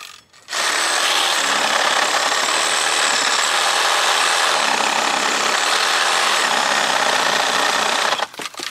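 Reciprocating saw cutting through a tree branch. It pauses briefly at the start, then runs steadily for about seven and a half seconds and cuts off near the end, followed by a few knocks.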